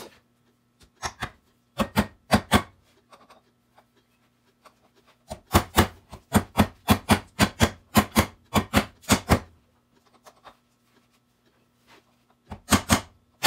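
Runs of sharp clicks and knocks, about three or four a second, from hands and tools working on a two-stroke ATV engine's crankcase. A faint steady hum sits beneath.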